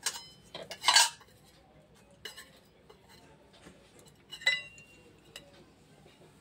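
Stainless-steel lids and metal dishes clinking as they are set down and covered: a few separate clinks, the loudest about a second in, one with a short ring later on.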